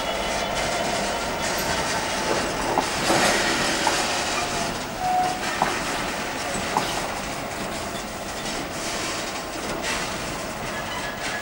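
Container freight train hauled by an EWS Class 66 diesel-electric locomotive rolling past: steady wheel-on-rail noise with a few sharp clicks over rail joints about a second apart and a brief wheel squeal about five seconds in.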